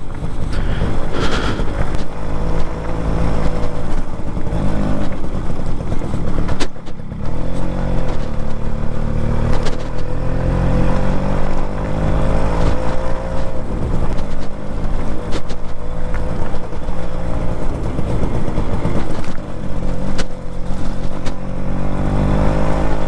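Suzuki Max 100's single-cylinder two-stroke engine running under way on a dirt track, its note rising and falling with the throttle and easing off briefly about seven seconds in before picking up again, with wind noise over the camera microphone.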